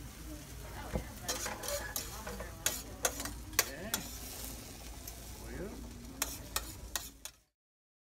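Steak Diane mushroom sauce sizzling in a skillet while a metal utensil repeatedly clinks and scrapes against the pan as the sauce is stirred and spooned out. The sound cuts off abruptly a little past seven seconds in.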